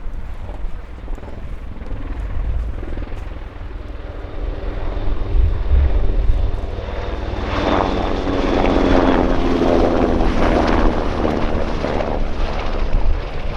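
NH-90 helicopter flying, its rotors and twin turbine engines making a steady rumble with a faint high whine; the sound swells and becomes much louder about halfway through as the helicopter comes closer.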